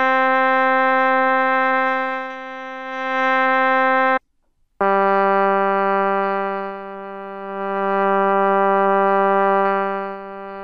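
Sustained notes from a Kontakt sample instrument, crossfaded between soft, medium and loud dynamic layers by an AET filter morph under mod-wheel control, so each note swells louder and fades softer with the timbre changing smoothly and without phasing. The first note breaks off about four seconds in, and a lower note follows half a second later.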